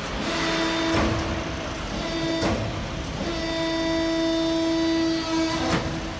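Hydraulic tee-pipe hydroforming press working: a steady pitched whine from its hydraulic system that drops out for under a second about halfway through, with three sharp clicks or knocks along the way.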